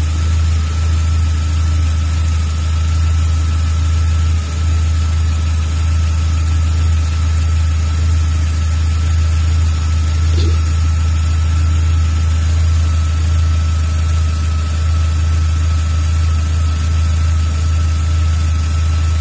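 Volkswagen Jetta Mk3 engine idling steadily at operating temperature while air is bled from its cooling system, with a faint steady high whine over the low hum.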